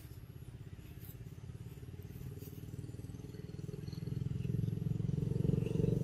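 A vehicle engine running nearby, a low rumble that grows steadily louder and is loudest near the end.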